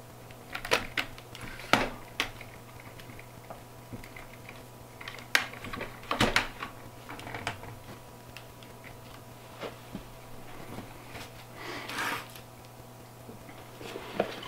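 Irregular clicks and knocks of hard plastic and metal parts being handled: a DJI Osmo handheld gimbal being fitted and adjusted on its extension arm and small tripod on a wooden table, with a short scraping rustle near the end. A faint steady hum runs underneath.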